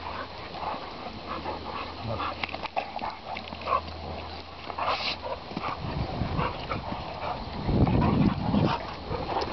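Great Danes play-fighting: a run of short growls, huffs and scuffles, loudest about eight seconds in as two of them tussle close by.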